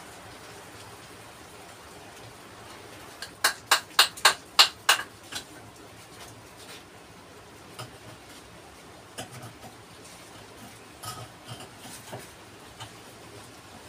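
Sharp taps of a tool on stone, most likely flat stones being tapped down into mortar: a quick run of about seven taps starts about three seconds in, then lighter scattered knocks and scrapes follow.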